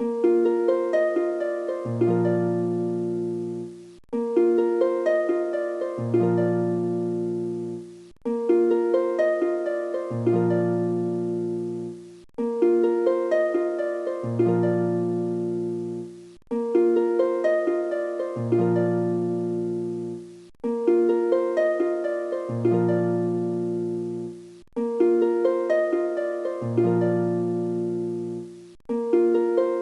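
Background music: a short phrase of plucked notes looping about every four seconds, each repeat cut off by a brief gap, with a low bass part joining halfway through each repeat.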